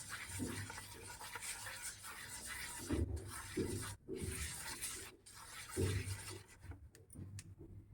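Wheat flour being stirred and scraped around a pan as it roasts in ghee, a steady rubbing sound with uneven stronger strokes.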